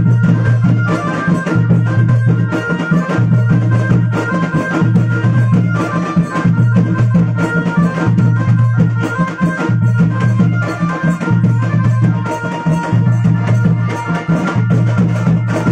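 A tasha party band playing a folk dance tune: a Casio keyboard melody over a steady beat of tasha, nagada and dhol-style drums, with jhaal cymbals. A deep note pulses in time, about once every second.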